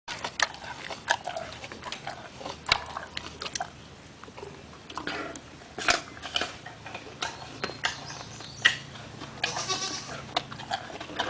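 Gorilla chewing an apple: a string of irregular wet smacks and crunching clicks. A short bleat-like call comes about nine and a half seconds in.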